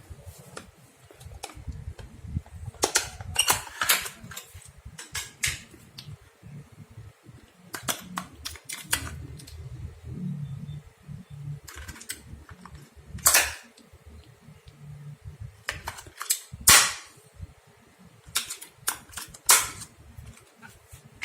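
Irregular sharp plastic clicks and snaps with soft handling knocks as AA alkaline batteries are fitted into an RC car's handheld transmitter; the loudest snaps come about 13, 17 and 19 seconds in.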